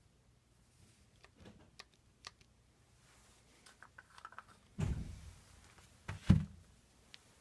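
Handling noises: scattered light clicks and taps, then two dull thumps, the second the louder, about five and six and a half seconds in.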